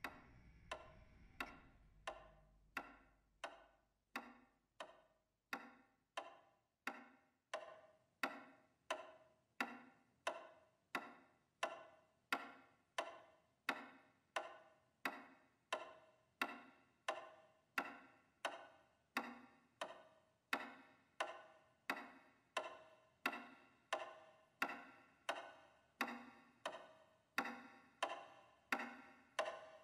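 A clock ticking steadily, a little under two ticks a second, each tick with a short ringing tail.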